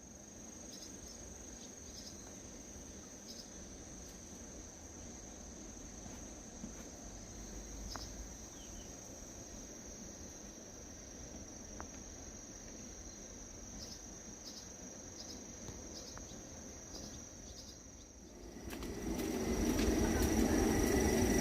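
An insect trilling steadily on one high pitch, over a faint hiss with scattered small drips and ticks. Near the end a louder low rumble with a hum comes in.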